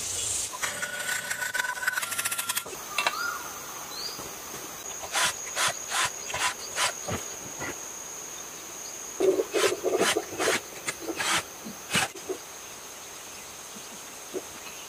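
Clicks and light knocks of pump parts being handled and fitted together during reassembly, a loose run of them with one sharper knock about twelve seconds in. A steady high insect buzz sets in about three seconds in and carries on behind them.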